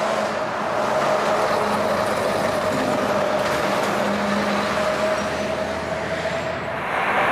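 Heavy vehicle running steadily: a broad rushing noise with a faint steady hum through it.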